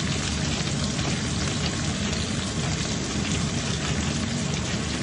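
Ginger and green onion sizzling in hot oil in a pan, a steady crackling sizzle.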